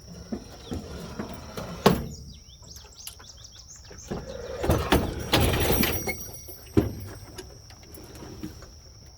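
Metal knocks and a scraping, rolling rumble as a small gas-powered locomotive is shifted by hand: a sharp knock about two seconds in, a louder scraping stretch in the middle, and another knock near the end. A steady high insect chirring carries on underneath.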